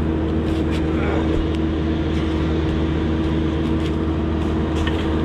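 Kubota excavator's diesel engine running at a steady speed, with a few short sharp clicks or clinks over it.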